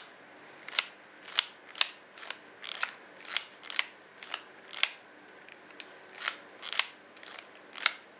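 A quick series of sharp clicks and taps, unevenly spaced at about two a second, from a thumb pressing the screen and keys of a BlackBerry Torch 9800 smartphone in a metal case.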